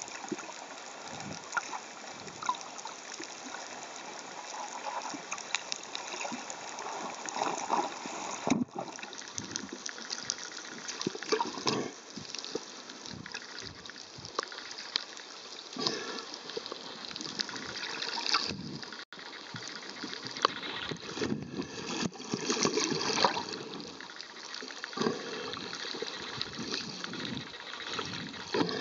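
Water sloshing and bubbling against an underwater camera, with scattered small crackles and pops. The sound breaks off for an instant twice.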